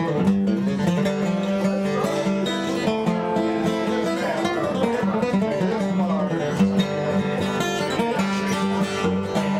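Acoustic guitar flatpicked solo: quick runs of single notes over a held low note.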